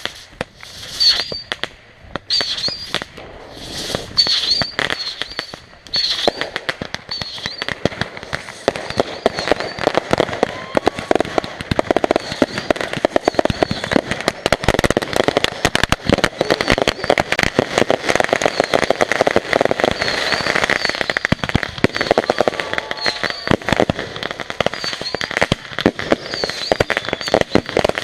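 Strings of firecrackers going off. A few scattered bangs come first, then from about six seconds in there is a dense, rapid crackle of many small bangs in quick succession that keeps going.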